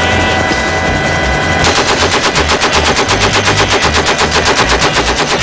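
Helicopter engine and rotor hum inside the open cabin. About a second and a half in, a door-mounted machine gun opens fire in one long continuous burst of about ten shots a second.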